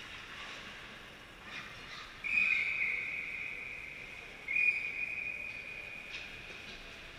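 Ice hockey referee's whistle blowing two long, steady blasts in a row to stop play after a scramble at the goal mouth. A few faint clicks of sticks and skates on the ice come just before.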